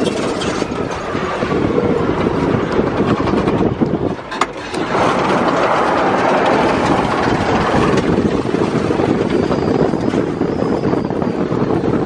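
All-electric Nikola NZT UTV driving fast over dirt and gravel: no engine sound, just the tyres crunching and rattling over the track with wind rushing past the open vehicle, and a sharp knock about four and a half seconds in.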